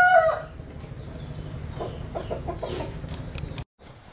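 The tail of a rooster's crow ends in the first moment, followed by quieter chicken clucking. The sound cuts out for a split second near the end.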